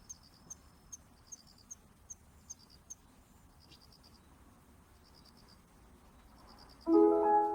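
Crickets chirping in short, repeated pulsed trills. About seven seconds in, a municipal disaster-prevention loudspeaker chime suddenly starts loud with a melody in sustained bell-like tones.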